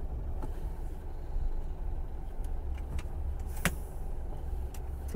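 Heavy truck's diesel engine running low and steady, heard from inside the cab as the loaded truck creeps into a parking space, with a few sharp clicks in the cab, the loudest a little past the middle.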